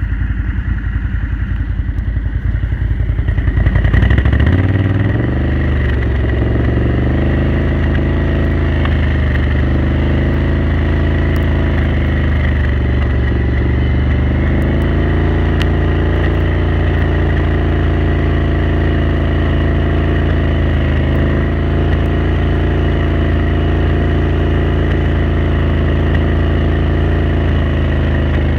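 Can-Am Renegade 1000 ATV's V-twin engine picking up speed about four seconds in, then running at a steady cruise with a few sharp pops: a misfire at cruise.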